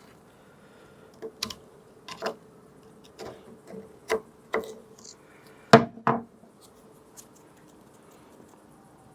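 Screwdriver tip scraping and tapping around the inside of a Honda CT110 fork tube, digging old grease out of the circlip groove: a string of irregular scrapes and clicks, the two sharpest close together a little past the middle.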